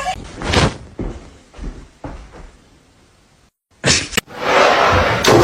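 A thump and a few softer knocks, then a short cut to silence, a couple of clicks, and steady running water that starts loudly near the end.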